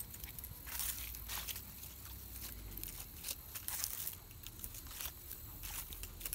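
Footsteps crunching through dry fallen leaves on grass, a string of irregular crackles.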